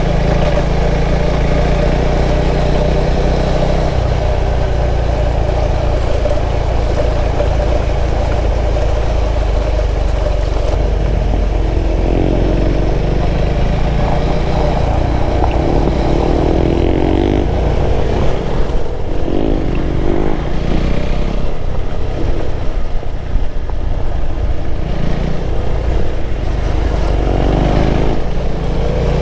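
KTM 390 Adventure's single-cylinder engine running under way on a gravel road. It holds steady at first, then rises and falls in pitch several times in the second half as the throttle is worked.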